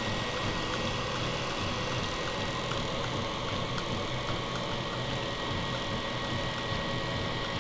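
Prusa Mendel 3D printer running: the Dell NPS-700AB server power supply's cooling fan whirs steadily, with light ticking and whining from the printer's stepper motors as it moves.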